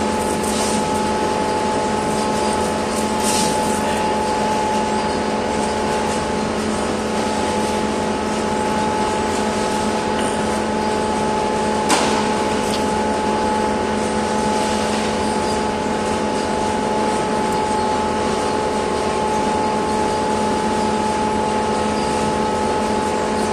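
A machine running with a steady hum, holding several fixed pitches over a noisy rush; a single sharp knock about twelve seconds in.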